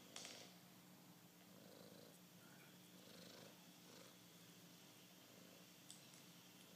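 Very faint purring from a tabby cat over a steady low hum, with a sharp click just after the start and a smaller click near the end.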